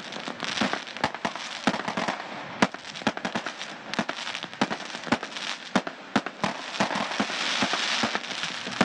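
Rapid, irregular sharp cracks and pops, several a second, over a steady hiss.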